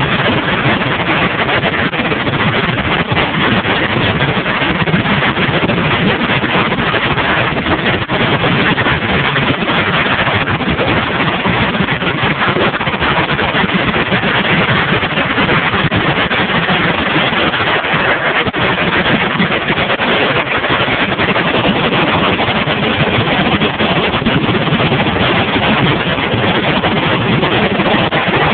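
Many machine guns firing full-auto at once on a firing line, a loud, dense, unbroken wall of shots with no pauses.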